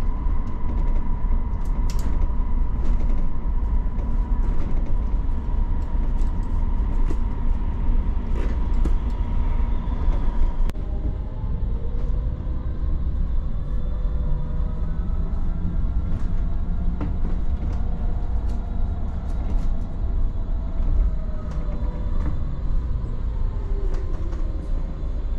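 Ride noise inside an Optare MetroDecker EV electric double-decker bus moving through traffic: a steady low rumble. Over it is a high whine that holds one pitch for about the first ten seconds, then several tones glide up and down as the bus speeds up and slows.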